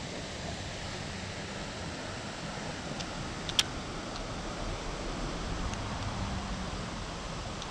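Steady rush of flowing creek water. A single sharp click comes about three and a half seconds in, with a few faint ticks around it.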